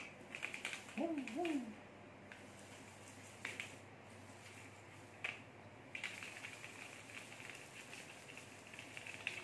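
A cat toy of plastic raffia strands scratching and rustling as it is swept across a tiled floor, with steadier scraping from about six seconds in. About a second in come two short calls, each rising then falling in pitch.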